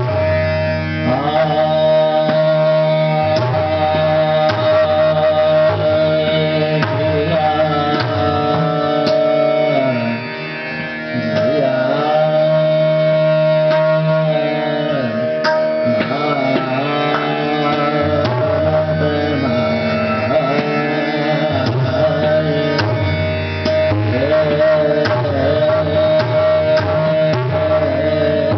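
Hindustani classical vocal music in Raag Yaman: a male voice singing gliding, ornamented melodic lines over a steady drone, with tabla strokes keeping the rhythm.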